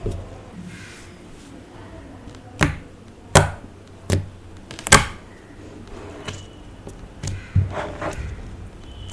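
A series of sharp clicks and taps from handling slime and makeup: four distinct ones in quick succession in the middle, then a few fainter ones near the end.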